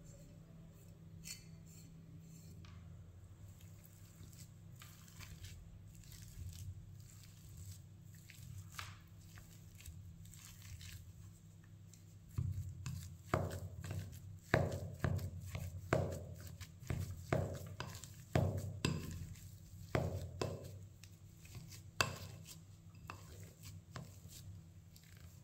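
Boiled potatoes being mashed with parsley in a glass bowl with a plastic slotted masher: a run of soft, squishy knocks against the glass, about one or two a second, starting about halfway through. Before that there are only faint light taps and scrapes.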